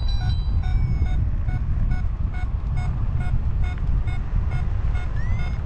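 Paragliding variometer beeping in short pulses, about three a second, its pitch shifting from beep to beep, with a brief rising tone near the end; pulsed beeps like these signal that the glider is climbing. Wind rushes steadily on the microphone underneath.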